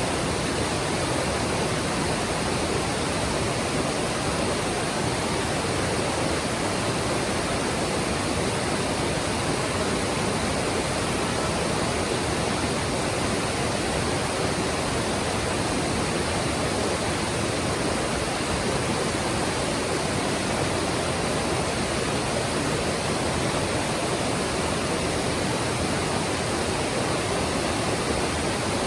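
Mountain stream rushing over rocks: a steady, even water noise without pauses or separate splashes.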